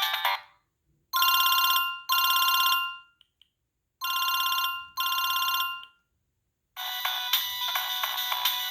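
Siemens C72 mobile phone playing its preloaded ringtones. One melody ends just after the start, then a telephone-bell style tone rings in two pairs of short trilling rings. A new polyphonic melody starts about seven seconds in.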